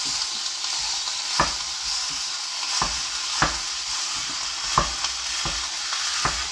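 Ground beef sizzling steadily in a frying pan, with about six sharp knocks at irregular intervals as a wooden spatula chops and breaks up the meat against the pan.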